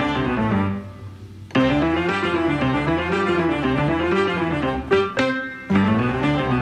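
Background music led by plucked strings, with two short breaks where it drops away, about a second in and again about five seconds in.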